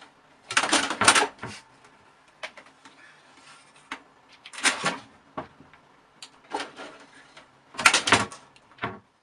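A cat's claws scrabbling against the side of a computer tower and the fabric of a curtain as it climbs. The sound comes in a series of short, scratchy bursts with light clicks between them, loudest about a second in and near the end.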